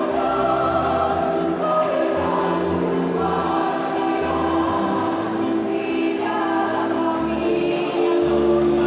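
A choir singing in harmony over musical accompaniment, with long held notes in several voice parts.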